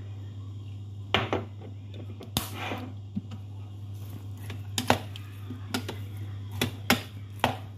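A plastic rice paddle scraping and knocking against the inner pot of a Zojirushi rice cooker as fried rice is stirred, in about eight short, uneven strokes over a steady low hum.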